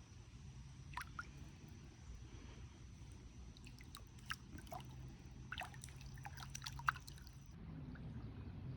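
Water dripping: irregular, short plinks of drops falling into water over a low steady background rumble.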